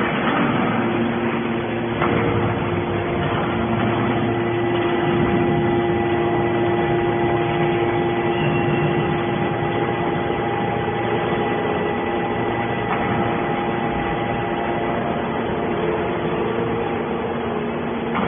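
Hydraulic power unit of a Q43-3150 scrap metal alligator shear running with a steady machine hum and several held tones.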